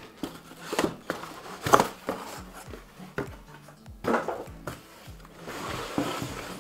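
Cardboard packaging being handled: an inner carton lifted out and a folded tripod work light slid out of its box. There are several sharp knocks and scrapes of plastic and cardboard on a wooden bench, over quiet background music.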